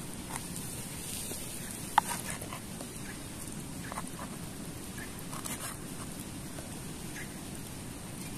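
Knife cutting raw tuna steak on a wooden cutting board, with a campfire crackling. Scattered small clicks and taps sound over a steady hiss, with one sharp click about two seconds in.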